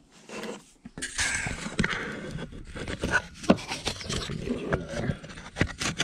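Irregular scraping and rustling with small knocks: handling noise from a hand and the camera brushing against wiring under the hood.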